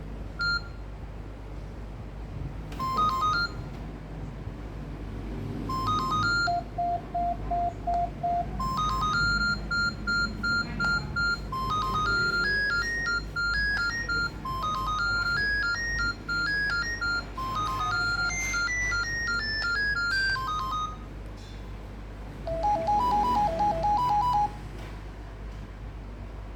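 Nokia 3110 classic's speaker playing Nokia 6100 ringtones: simple one-note-at-a-time tunes of quick, clipped electronic notes. Short rising three-note phrases come about three and six seconds in, then a repeated single note, then a longer up-and-down melody from about nine to twenty-one seconds, and a final short phrase near the end.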